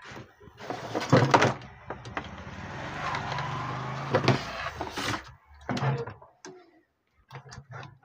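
A CRT TV's circuit board and wiring being handled and shifted on a wooden workbench: scraping and rustling, with several sharp knocks about a second in and again around four and five seconds.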